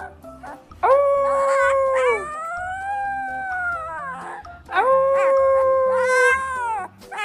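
Young husky puppy howling: three long drawn-out howls, the first and last held at one pitch and dropping away at the end, the middle one rising and falling. Faint background music underneath.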